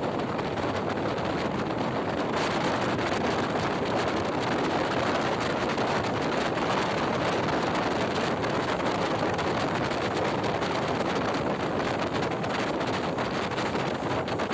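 Wind rushing past an open window of a moving passenger train, over the steady rumble of the train running on the track. The rush turns a little brighter about two seconds in.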